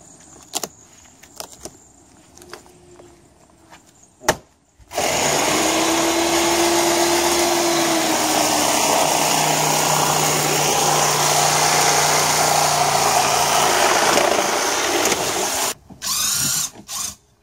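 Cordless power drill running steadily under load for about ten seconds, starting about five seconds in, then two short bursts near the end; a few faint clicks come before it.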